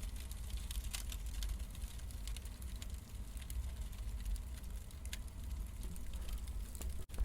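Wood fire crackling: a steady low rumble with scattered sharp pops and crackles, cutting out for an instant near the end.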